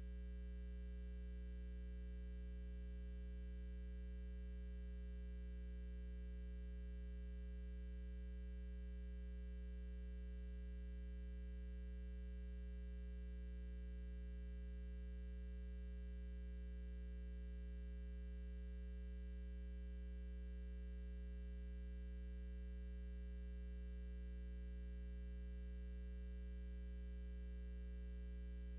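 Steady low electrical hum with a stack of evenly spaced overtones; no other sound stands out.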